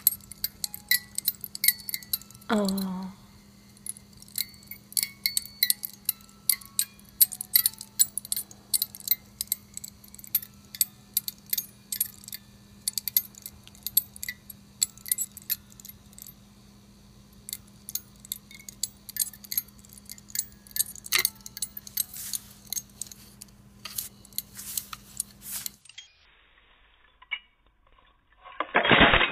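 A small wind-up music box movement running, plucking a tune as a string of sharp clicks with short ringing notes at several pitches, over a steady low hum. A brief falling tone comes about two and a half seconds in, and near the end the sound cuts off, followed by a short loud burst.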